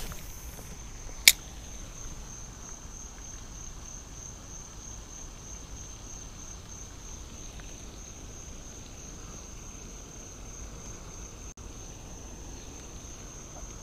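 Insects trilling steadily in a high, finely pulsing tone, like crickets, over faint outdoor hiss. A single sharp click comes about a second in.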